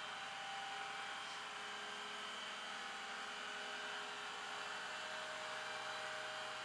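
Steady hum of an idling flatbed tow truck, with several fixed tones and no change in pitch.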